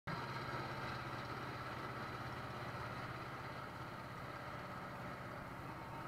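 Steady running hum of engines and machinery on an airport apron, a low drone with a steady higher whine over it.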